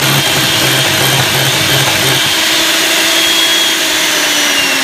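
Hamilton Beach electric hand mixer switched on right at the start and running steadily with a motor whine, its steel beaters whipping coconut cream in a glass bowl.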